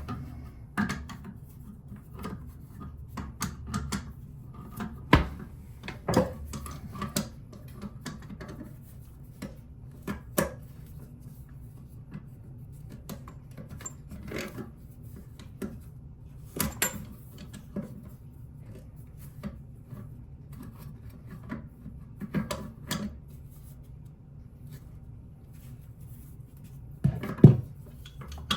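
A wrench working the nut of a toilet's water supply connection under the tank, giving scattered clicks, scrapes and knocks of the tool on the fitting. A sharper knock comes near the end.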